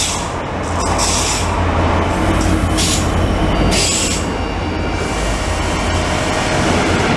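Locomotive-hauled double-deck passenger train passing close along a station platform: a steady deep rumble and rolling wheel noise, with short sharper bursts of wheel noise every second or so.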